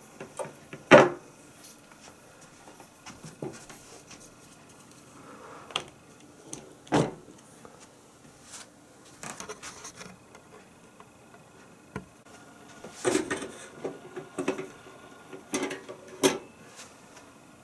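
Handling clicks and knocks from an electric contact grill: a few sharp clicks, the loudest about a second in, as the power cord is plugged into a power strip, then a cluster of clattering knocks from the metal latch and hinged lid near the end as the lid is unlatched and lifted.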